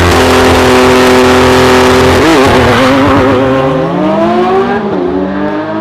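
Car engine sound revving: a steady engine note, a brief warble a little over two seconds in, then a pitch climb about four seconds in that drops away near the end.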